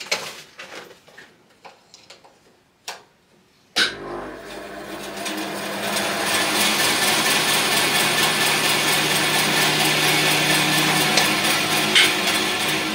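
A few knocks and clicks, then a switch clicks and a Record Power BS400 bandsaw starts up. It runs up to speed over about two seconds, then runs steadily with a low hum. This is a test run after fitting a new blade, to check that everything is okay. A sharp click comes near the end.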